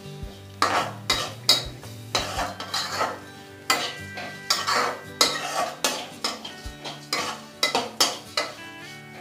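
Spatula stirring flattened rice (chura) frying in oil in a kadhai on high flame, scraping and knocking against the pan in quick, irregular strokes about two a second.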